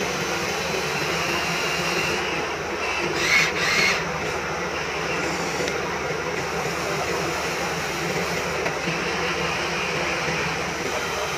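Remote-control toy excavator's electric motors whirring steadily as its arm moves, with a brief louder hiss about three seconds in.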